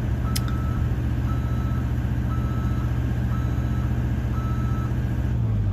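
JLG 600A articulating boom lift's motion alarm beeping about once a second, a single steady tone, over the machine's engine running steadily; the alarm sounds while a boom or platform function is being operated.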